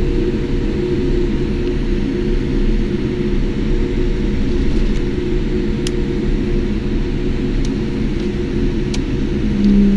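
Cabin noise inside a Boeing 787 taxiing after landing: a steady low hum and rumble from the idling engines and the rolling airframe, with a few faint clicks in the second half and a brief louder low tone near the end.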